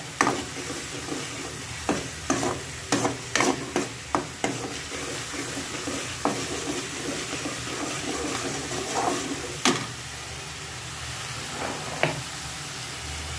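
Steel spoon stirring and scraping a thick tomato-spice masala as it fries in a metal kadhai, over a steady sizzle. Sharp clinks of the spoon against the pan come thick and fast a couple of seconds in, then only now and then.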